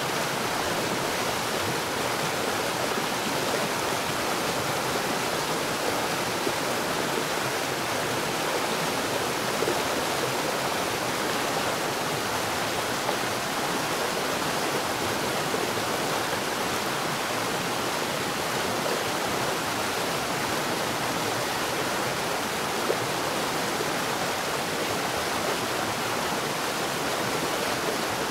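Water falling rapidly underground, a steady, unbroken rush that does not change.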